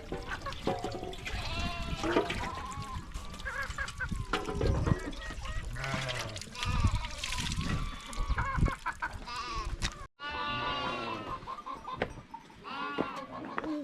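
A herd of goats bleating, many calls overlapping, with a brief break about ten seconds in.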